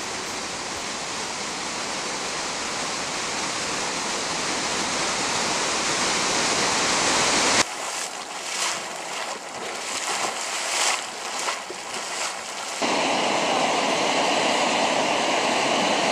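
Steady rushing of a large waterfall, slowly growing louder, cut off abruptly about seven and a half seconds in by an uneven, gusting hiss at a steaming geothermal vent. About thirteen seconds in this switches to the steady hiss of steam jetting from a fumarole.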